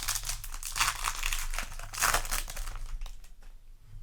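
Foil booster-pack wrapper crinkling as it is handled, with loud crackles about one and two seconds in, dying down about three seconds in.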